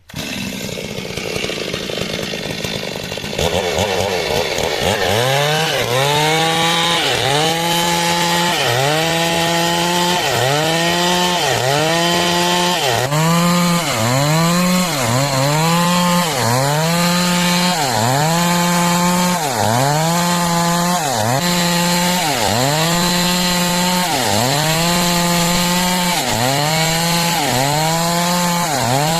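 Stihl MS 382 two-stroke chainsaw revving up and ripping lengthwise through a log to cut boards. Its engine pitch dips under load and recovers about once a second.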